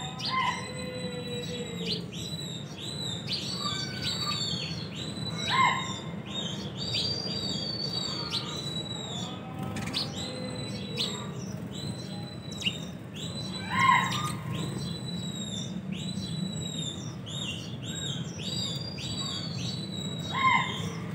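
House sparrows chirping in rapid, continuous strings of short high cheeps. Three times, about eight seconds apart, a louder call slides down in pitch.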